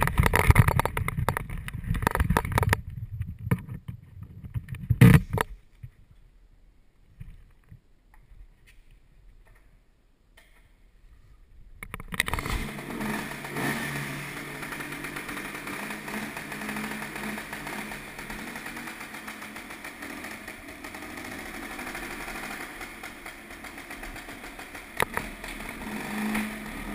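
Knocks and clatter for the first five seconds, then near quiet. About twelve seconds in, a classic Vespa scooter's engine starts and runs steadily, with one sharp knock near the end.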